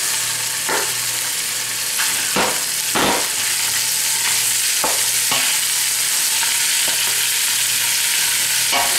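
Cubed raw chicken sizzling in hot oil in a big metal pot while a wooden spoon stirs it. The spoon knocks and scrapes against the pot a handful of times in the first five or six seconds, the longest scrape about three seconds in, over a steady sizzle.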